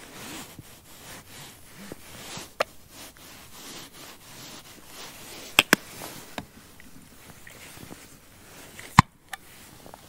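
Squeeze bottle of mustard squirting and sputtering onto burgers, with a few sharp clicks and taps of bottles and a jar being handled, the loudest near the end.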